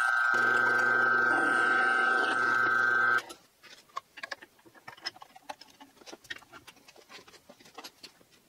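Bench drill press running with a steady high whine while drilling a pilot hole in an iron pipe fitting; the sound cuts off abruptly about three seconds in. After that there are only faint, irregular light clicks.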